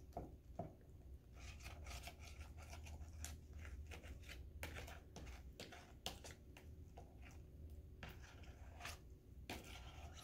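Faint, irregular wet scraping and squelching as a utensil stirs thick glue-and-starch slime in a plastic bowl, the mix just starting to come together into slime.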